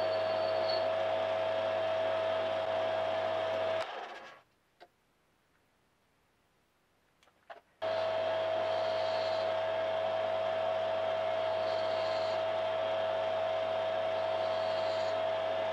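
Metal lathe running and turning a metal part, a steady motor whine with a low hum and the hiss of the cut. Almost four seconds in, the sound fades away to near silence with a couple of faint clicks, then comes back suddenly at full level.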